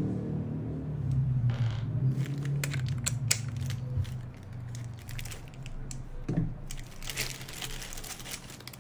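Hands handling small white plastic parts, a power adapter and a clip-on mounting plate, making a series of light plastic clicks and taps. Clear plastic bag wrapping crinkles near the end. A low hum runs underneath in the first half.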